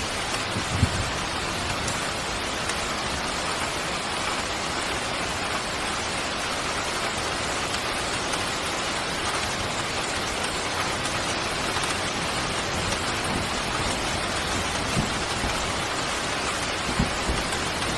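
Steady rain falling, an even hiss of drops, with a couple of brief low thuds about a second in and near the end.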